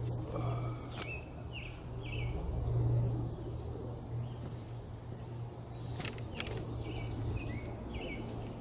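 A small bird chirping in two short groups of quick notes, one at the start and one near the end, over a steady low outdoor background hum. A few sharp clicks land about a second in and twice around six seconds in.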